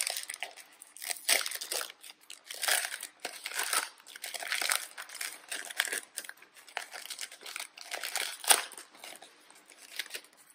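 Foil wrapper of a Topps Chrome baseball card pack crinkling in irregular bursts as it is torn open and handled by hand, with one sharper crackle about eight and a half seconds in.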